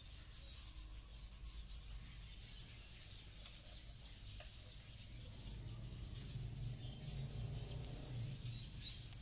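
Outdoor ambience of small birds chirping again and again, over a low steady hum that grows louder in the second half. A thin high whine runs through the first few seconds, and two sharp clicks come near the middle.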